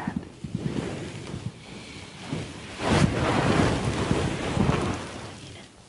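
Bedding rustling as people shift under a duvet: a rough crackling noise that swells about three seconds in and fades near the end.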